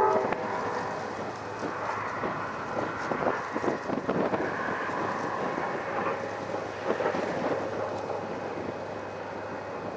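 Strong wind buffeting the camera's microphone in uneven gusts, with a faint steady low hum underneath.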